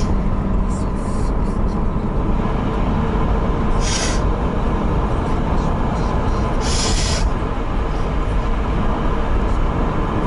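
Steady road and engine noise of a moving car heard from inside the cabin. Two brief hissing swells come about four seconds in and again about seven seconds in.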